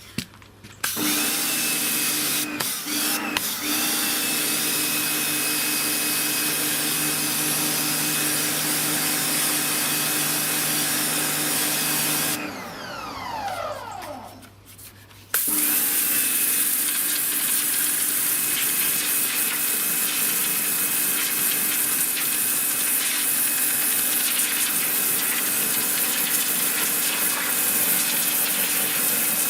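Sunpow BCN-H 1600-watt electric pressure washer: its motor and pump start about a second in and run steadily with a hiss of spray. About twelve seconds in the machine shuts off and the motor winds down with a falling whine. A few seconds later it starts again and runs on.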